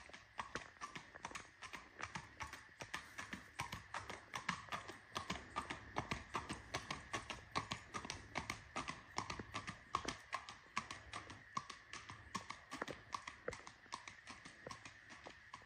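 Tennessee Walking Horse's hooves clip-clopping in a quick, even rhythm of about four to five hoof strikes a second.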